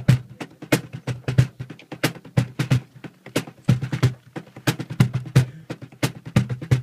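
Audience applauding, with loud single claps standing out about three times a second. The applause thins out near the end.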